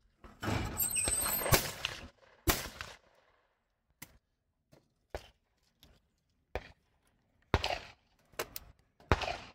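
Two shotgun shots from an over-and-under about a second apart at a simultaneous pair of clay targets, followed by light clicks and knocks as the gun is broken open and the spent cartridges come out.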